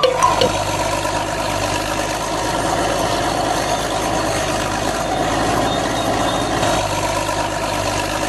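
A vehicle engine running steadily at idle, an even rumbling noise with no change in speed, cut in and out abruptly.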